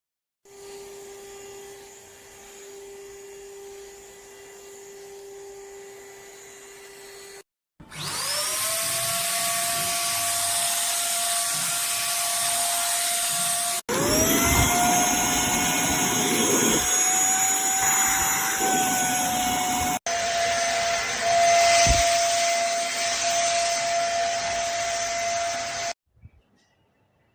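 Vacuum cleaner motor, first a quieter low steady hum, then three times whining up to speed and running steadily at a high pitch with a rushing hiss of air. Each run stops abruptly.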